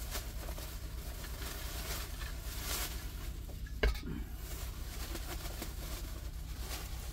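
Plastic bags rustling as they are handled and packed, with a single sharp knock a little under four seconds in, over a steady low hum.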